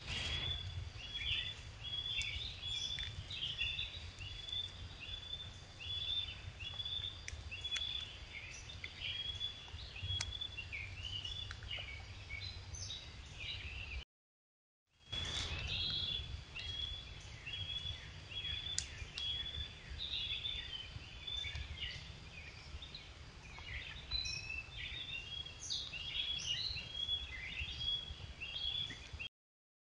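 Small birds chirping and singing in quick overlapping phrases over a low steady hum. It comes in two stretches, with about a second of dead silence near the middle.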